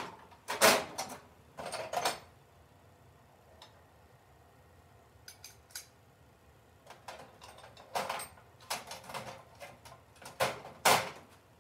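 Metal hand tools clinking and clanking in several short bursts, loudest about half a second in and near the end: a 10 mm socket, ratchet and extension being picked out from among other tools.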